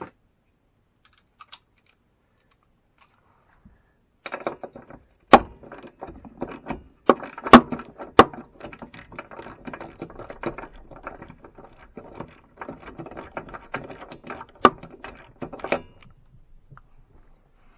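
Metal hand tools clicking and rattling, with several sharp knocks, as a socket wrench is worked to take the spark plug out of a push mower's engine.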